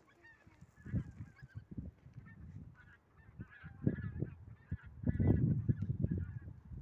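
A large flock of wild geese honking in flight overhead, many short calls overlapping, with gusts of wind rumbling on the microphone that are loudest about five seconds in.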